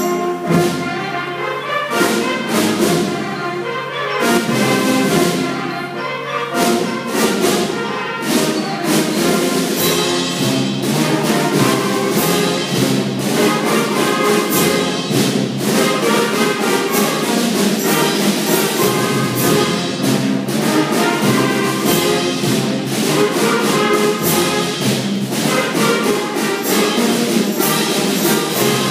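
School concert band playing a piece with brass and drums, the drums keeping a steady beat under sustained wind notes.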